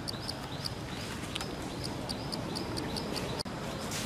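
Outdoor ambience with a high chirping call repeated rapidly, about five or six chirps a second, thinning to scattered chirps after about a second. The sound drops out suddenly for an instant about three and a half seconds in.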